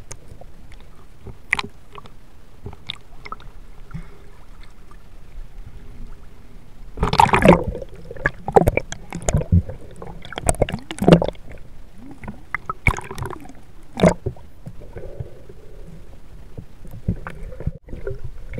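Water sloshing and gurgling around a camera held in the water: a steady muffled low rumble, then from about seven seconds in a run of louder irregular splashes, gurgles and knocks.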